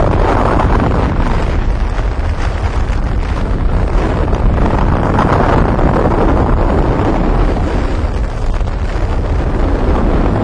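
Long, continuous explosion rumble, loud and heavy in the low end, with no fresh blast inside. It is a sound effect dubbed onto the silent colour film of the first atomic bomb test.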